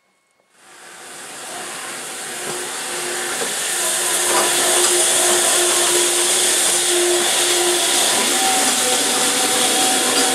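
Steam train running past close by: a loud, steady hiss and rumble of the locomotive and coaches. It starts suddenly about half a second in and builds over the next few seconds, with faint steady ringing tones running through it.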